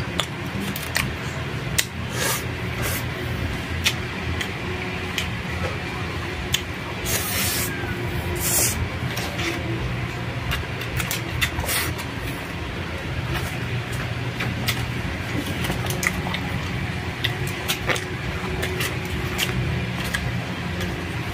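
Close-up eating sounds: chewing with wet mouth clicks and smacks, and a plastic spoon scooping rice from a paper takeout box, over a steady low hum. Two short rustling hisses come about a third of the way in.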